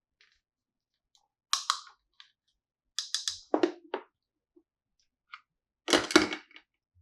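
Small plastic toy pieces clicking and tapping as they are handled, in three short clusters of sharp clicks, the last the loudest.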